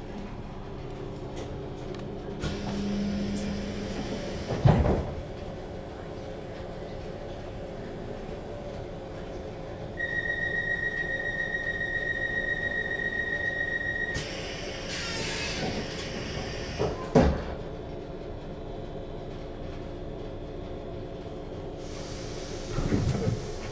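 Inside a Class 455 electric multiple unit standing at a platform: the steady low hum of the train's onboard equipment, with a few knocks and thuds. About ten seconds in, a steady high door warning tone sounds for about four seconds and stops with a thud and a rush of air as the sliding doors close.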